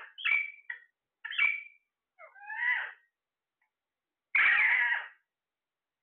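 Caged green parakeets calling: several short squawks that bend up and down in pitch in the first three seconds, then one longer, harsher screech about four seconds in.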